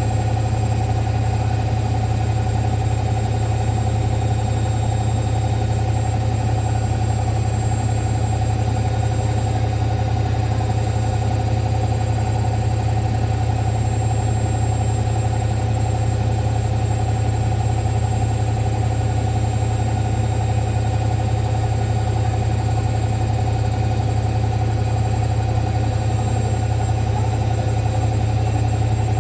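Hoover washing machine on its spin cycle: a steady low motor-and-drum hum that holds one even pitch throughout, with faint steady higher tones above it.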